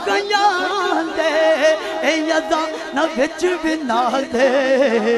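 A man singing a Punjabi naat into a microphone, drawing out long wordless melodic lines whose pitch wavers and bends.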